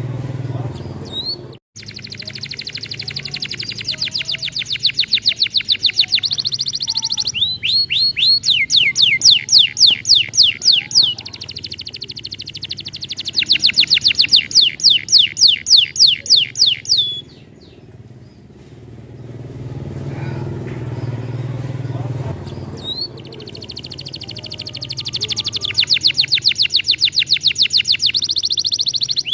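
Domestic canary singing: rolling trills of rapidly repeated falling whistled notes, in phrases several seconds long with short pauses between them. A steady low rumble runs underneath.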